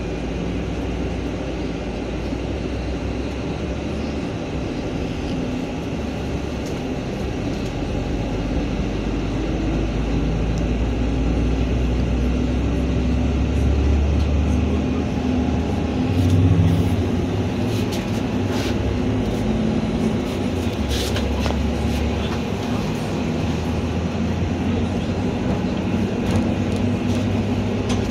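NefAZ city bus heard from inside the cabin while driving: a steady low drive and road rumble that builds as the bus picks up speed around the middle. A few sharp clicks and rattles come in the latter half.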